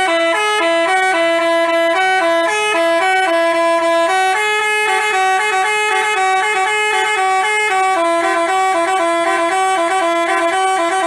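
Telolet 'basuri' bus musical horn playing a fast tune, loud, its held horn notes stepping quickly between a few pitches, then cutting off sharply at the end.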